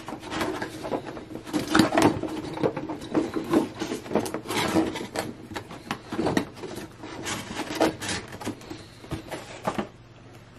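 Cardboard display box and toy being handled as the toy is pushed into position: irregular rubbing, scraping and tapping.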